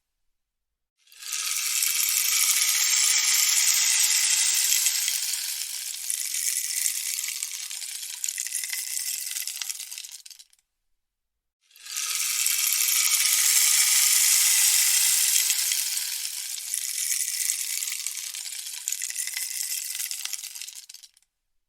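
Rainstick tipped over twice. Each time a dense, hissing patter of pellets cascades down inside the tube, swells in about a second, then slowly thins out over some nine seconds. A short silence separates the two.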